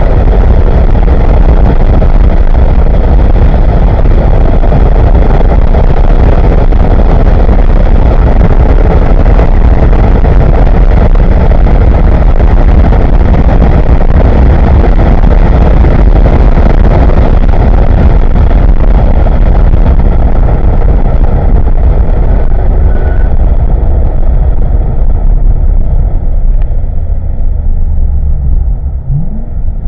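Inside the cabin of a C6 Corvette Z06 at full throttle: the 7.0-litre LS7 V8 running at high revs, with heavy wind and road noise at 130 to 160 mph, very loud. In the last few seconds the noise drops as the car brakes and downshifts for a slow corner, then a rising engine note as it picks up again.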